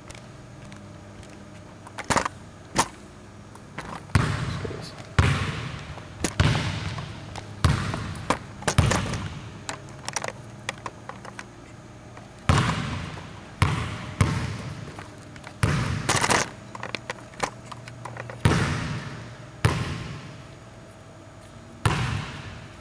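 Basketball bouncing on a hardwood gym floor: a run of sharp, irregular bounces, each ringing out in the hall's echo.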